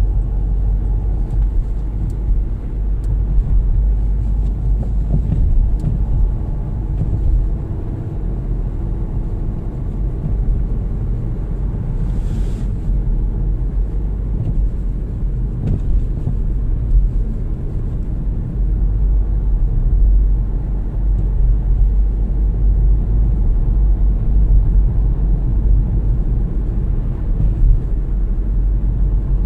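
Steady low rumble of a car driving, heard from inside the cabin: road and engine noise. A brief hiss comes about twelve seconds in.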